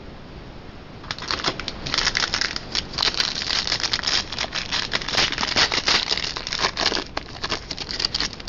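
Foil trading-card pack wrapper crinkling and rustling as it is torn open and handled, a busy crackle that starts about a second in.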